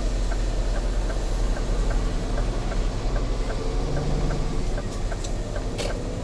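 Semi-truck's diesel engine running low, heard from inside the cab, with a light regular ticking about three times a second; the engine note rises a little about four seconds in. A couple of short sharp clicks come near the end.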